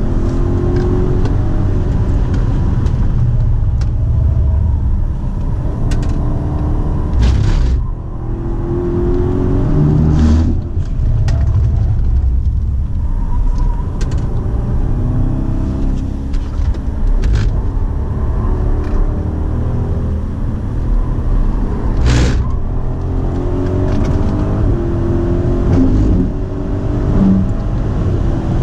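BMW Alpina B7's twin-turbo V8 run hard around a racetrack: pitch climbs again and again through upshifts, with a dip about eight seconds in as the car slows for a corner. Tyre and wind noise lie underneath, with a few sharp knocks.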